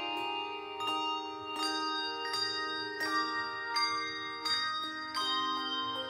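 Handbell choir ringing chords, a new chord struck about every three-quarters of a second, each one ringing on into the next.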